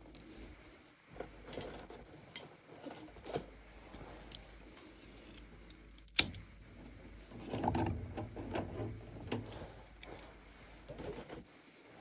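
Scattered clicks, knocks and light rattles of metal parts being handled during work on a gas furnace, with a sharp click about six seconds in and a busier stretch of low knocking shortly after.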